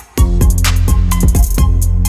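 Electronic dance music with a heavy kick-drum beat and bass and no singing. It drops out for a moment at the start, then comes back in at full level.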